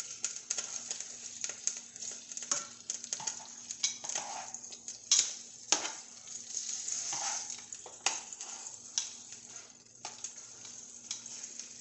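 Bone-in pieces of meat sizzling as they brown in butter and oil in a nonstick sauté pan, with frequent sharp clicks and scrapes of metal tongs against the pan as the pieces are turned.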